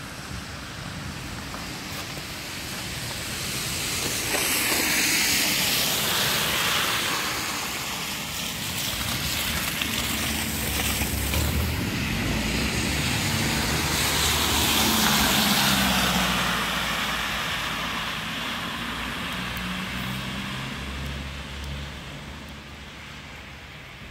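Cars passing on a wet road: tyre hiss swells and fades twice, loudest about five and fifteen seconds in, with a low engine hum under the second pass.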